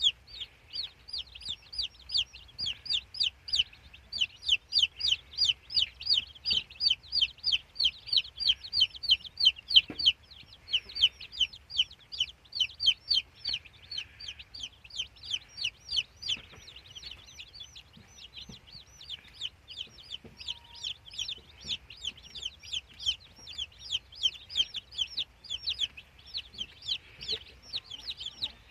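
A brood of newly hatched chicks peeping constantly: short, high calls, each falling in pitch, coming several a second and overlapping, softer for a while in the middle.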